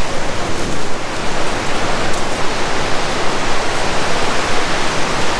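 Steady, loud rush of a fast-flowing mountain river.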